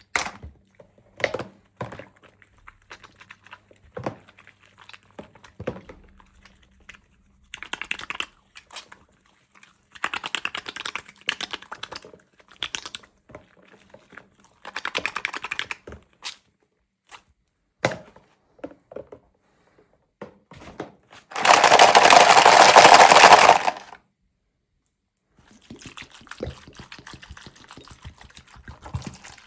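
Toy packaging and small plastic doll pieces being handled: scattered clicks and taps, short rustles and crinkles, and one loud rushing noise lasting a couple of seconds a little past the middle.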